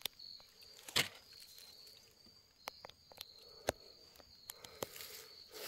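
Scattered footsteps crunching in dry fallen leaves, with a few sharp snaps, over a steady high insect trill.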